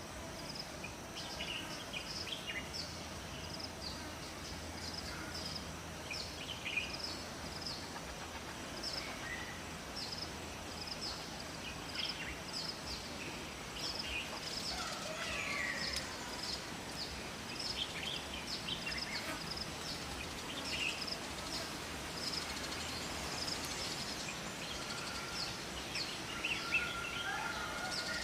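Forest ambience of several wild birds calling: a high, short chirp repeated over and over, scattered whistles and chirps from other birds, and a held whistle near the end, over a steady background hiss.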